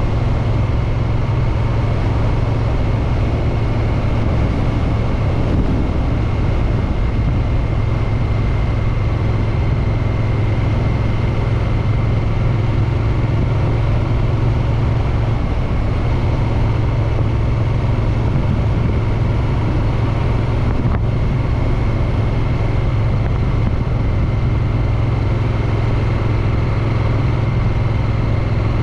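Triumph Street Twin's 900 cc parallel-twin engine and exhaust running loud and steady, its engine speed holding without revving up or down.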